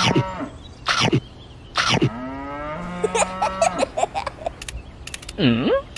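Dubbed cartoon sound effects: a cow mooing, a few sharp hits, and cartoon laughter.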